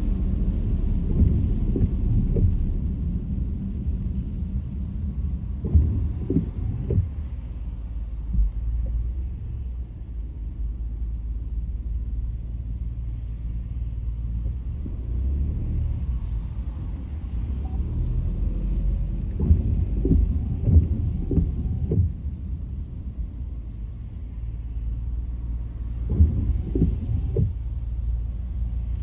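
Car driving: a steady low rumble of engine and road, with a few clusters of short knocks about six seconds in, around twenty seconds, and near the end.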